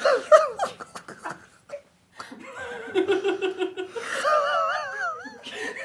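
Hearty human laughter: a short high laugh at the start, then a quick run of ha-ha pulses, and a high, wavering giggle near the end.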